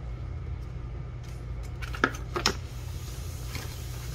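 Folded paper instruction leaflet being handled and unfolded: a few short, crisp paper crackles about two seconds in, over a steady low hum.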